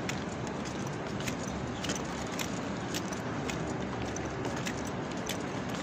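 Steady outdoor background noise with many light, irregular clicks and small jingles scattered through it.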